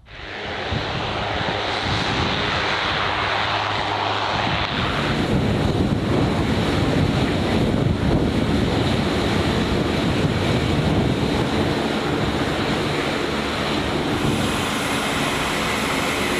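Turboprop engines of a military transport aircraft running on the ground with their propellers turning: a loud, steady engine and propeller noise that starts abruptly.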